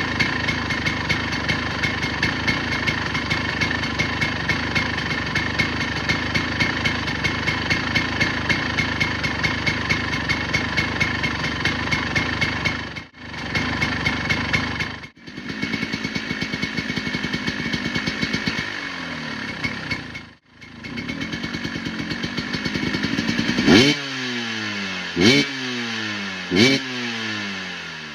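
1998 KTM EXC 250 two-stroke dirt bike engine running through its new exhaust: a steady idle with a few brief dropouts, then three quick throttle blips near the end, each rising sharply and falling back.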